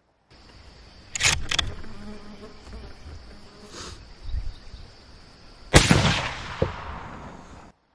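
A .243 Winchester Savage Axis rifle fires once about six seconds in, a sharp crack followed by a long decaying echo. Two sharp clicks come about a second in, and insects buzz steadily in the background throughout.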